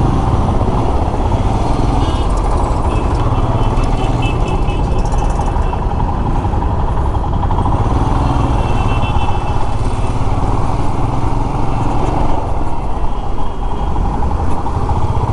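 Royal Enfield Himalayan's single-cylinder engine running steadily at low speed as the motorcycle creeps through slow traffic, with the sound of surrounding traffic behind it.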